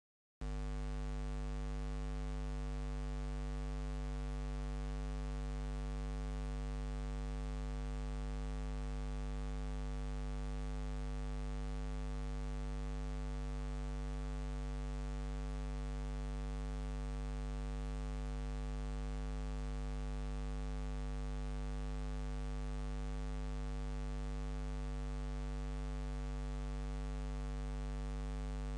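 Steady low electrical mains hum with a ladder of overtones, starting abruptly about half a second in and running unchanged, with a faint hiss above it.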